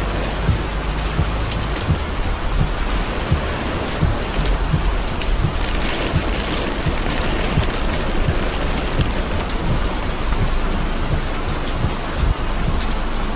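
Torrential rain pelting a car's roof and windshield, heard from inside the car: a dense, steady hiss with many heavy drops knocking on the roof.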